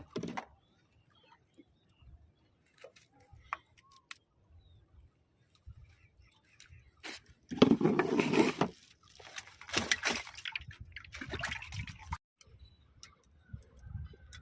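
Water splashing and sloshing in a few bursts, the loudest about eight seconds in, between stretches of near quiet.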